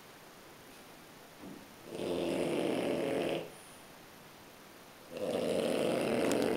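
French bulldog snoring in deep sleep: two long snores, each about a second and a half, roughly three seconds apart.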